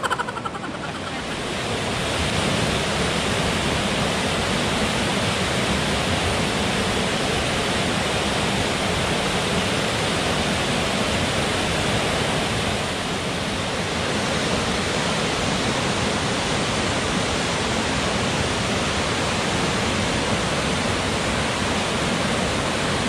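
River rapids: fast water rushing and churning over boulders, a steady loud rush that fades in over the first two seconds.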